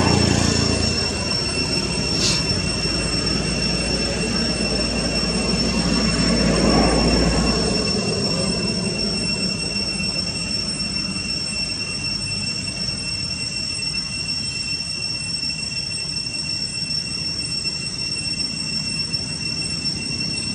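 Steady, high-pitched insect drone, most like cicadas, holding two unwavering tones over a hiss. A low rumble underneath stops about eight seconds in.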